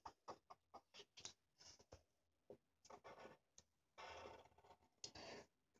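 Faint scratching of a colored pencil on paper: a run of short quick strokes, then two longer strokes about four and five seconds in.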